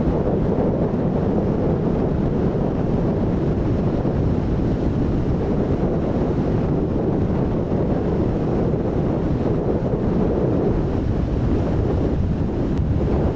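Strong wind rumbling steadily on the microphone, over the wash of rough sea.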